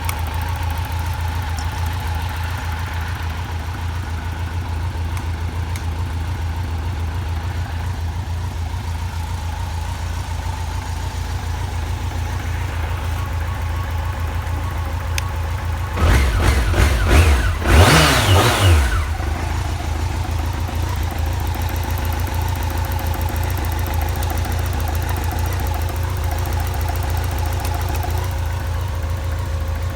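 BMW K1100RS's inline-four engine idling steadily, revved briefly about halfway through, rising and falling back to idle. The seller describes it as running without abnormal noise and revving up cleanly.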